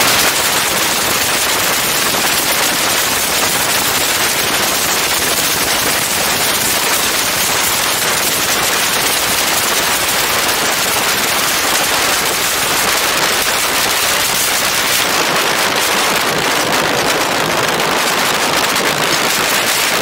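Engine and propeller of a TL-Sting ultralight running at taxi power, heard from right above the cowling in the propeller's slipstream: a loud, steady noise with no clear pitch.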